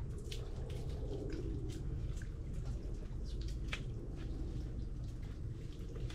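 Water dripping and lapping among mangrove roots, heard as scattered light clicks and drips over a steady low rumble.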